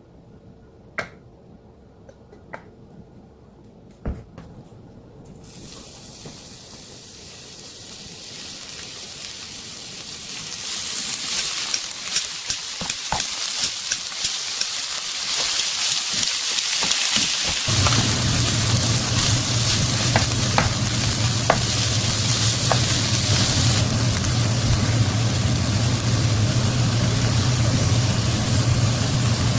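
Food sizzling in a hot frying pan. A few light clicks come first, then the sizzle builds over several seconds to a steady, loud hiss. About eighteen seconds in, a low steady hum joins it.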